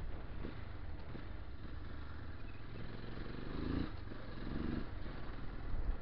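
Motorcycle engine running while riding, with wind noise on the microphone; the engine note rises briefly twice a little past the middle.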